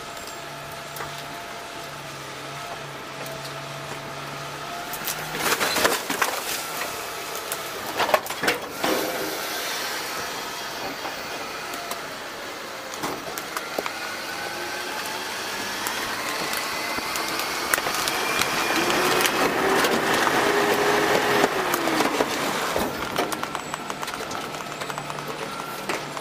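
DaDee Scorpion full-eject automated side-loader garbage truck dumping a cart into its hopper: loud clattering crashes of trash and yard waste about six and eight seconds in. Over the truck's running engine, the hydraulics then whine, rising in pitch and getting louder through the second half before easing off.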